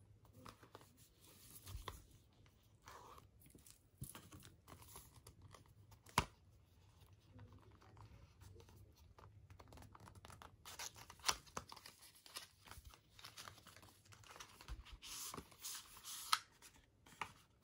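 Faint rustling, scraping and crinkling of a cardboard watch-band box and paper packaging being handled and opened, with many small clicks and one sharper click about six seconds in. The scraping grows busier from about ten seconds in.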